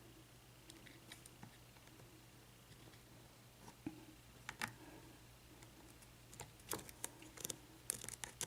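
Faint small metallic clicks and ticks of a lock pick working the pin stack of a Best seven-pin padlock under tension, the sound of single-pin picking as pins are lifted and set. The clicks are sparse at first and come in a quick cluster over the last two seconds.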